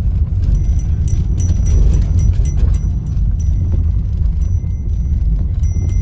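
Inside a vehicle driving over a rough dirt track: a steady low rumble of engine and tyres, with irregular rattles and knocks as it jolts over the bumps.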